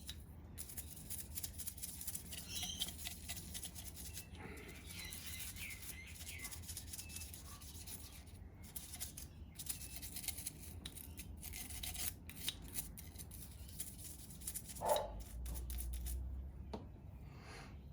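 Toothbrush scrubbing a stripped Tikka T3 rifle bolt during cleaning: a steady run of quick, scratchy bristle strokes. There is a brief louder bump about fifteen seconds in.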